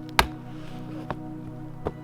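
Background music over sharp knocks of wood being chopped: three strikes, a loud one just after the start, then two fainter ones about a second in and near the end.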